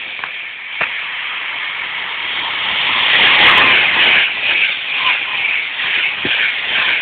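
High-speed express passenger train passing through a station at speed: a rushing roar of wheels and air that builds, peaks about three to four seconds in and stays loud, with a few sharp clicks.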